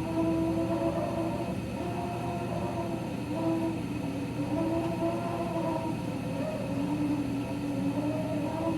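Raypak 106A spa heater whining: a steady pitched whine that wavers and dips slightly in pitch now and then, over a low hum. The whine is the unwanted noise the heater is making.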